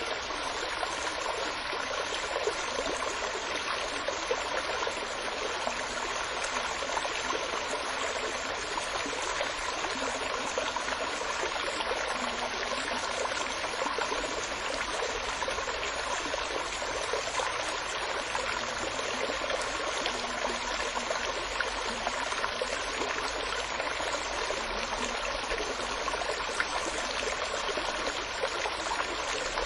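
Steady running water of a stream, an even rushing and trickling with no breaks or changes.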